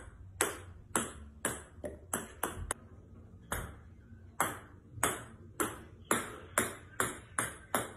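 Ping-pong ball bouncing on a hardwood floor: a string of sharp, ringing ticks that come closer together as the bounces die down, then a fresh run of bounces starting about three and a half seconds in.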